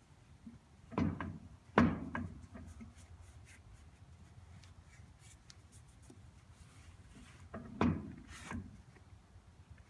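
Metal clunks and knocks from parts being handled on a truck's rear-axle pinion: two about a second in, the second the loudest, and two more near the end, with quiet between.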